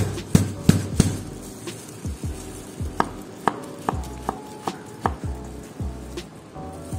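Chef's knife chopping and crushing garlic and ginger on a cutting board, several quick sharp strokes in the first second, then lighter knocks, over background music.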